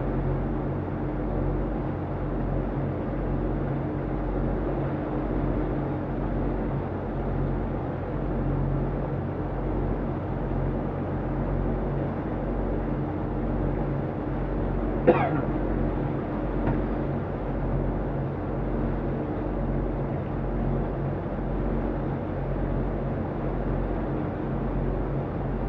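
Motor yacht's engines running steadily at low speed, a deep even drone. About fifteen seconds in, a single short sharp sound stands out above it.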